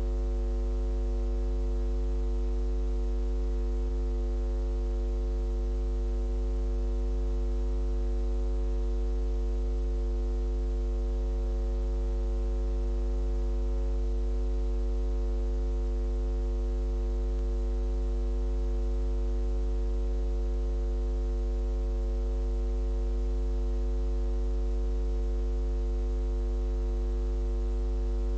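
Steady electrical mains hum with a stack of higher overtones and a faint hiss, unchanging throughout, with no other sound.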